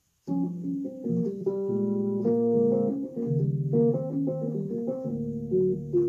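Electric piano playing a jazz-blues chord intro, starting just after the opening moment.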